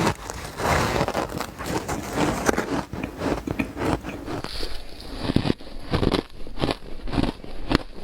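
Close-up crunching of powdery ice chunks being bitten and chewed: dense crackling bites at first, then separate sharp crunches about every half second in the second half.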